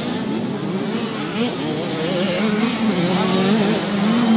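Several 65 cc two-stroke motocross bike engines running at once, their pitch rising and falling as the throttles open and close through the turns.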